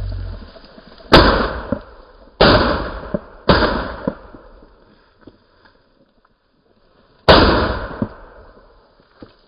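Four shotgun shots: three in quick succession about a second apart, then a fourth some four seconds later. Each is a sharp report with a short echoing tail.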